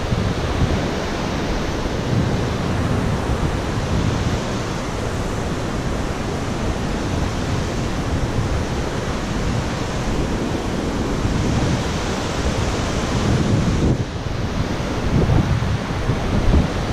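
Wind buffeting the microphone in uneven gusts, low rumbling surges over a steady rushing hiss.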